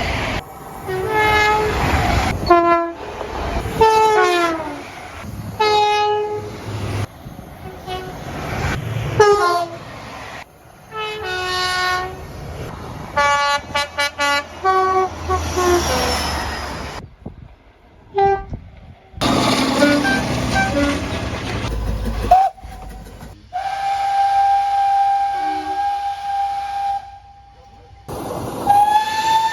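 Train horns sounding in a series of short clips that break off abruptly. Several blasts fall in pitch as they go, and a long steady single-note blast comes in the second half.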